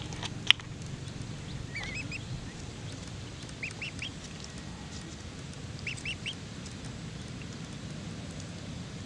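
Domestic ducklings peeping: a few clusters of two or three short, high chirps. There is a single sharp click about half a second in, over a steady low background hum.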